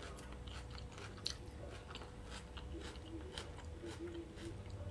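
A person chewing a mouthful of salad close to the microphone, making soft, moist clicks and small crunches throughout.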